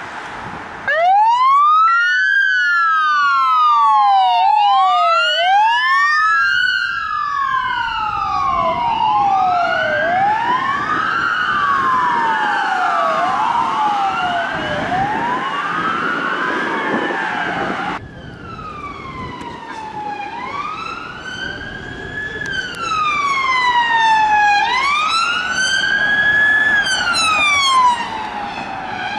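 Police car sirens on wail, their pitch rising and falling about once every two seconds, with two overlapping sweeps at times. About 18 seconds in the sound changes suddenly to a slower wail that swoops up and back down over about four seconds.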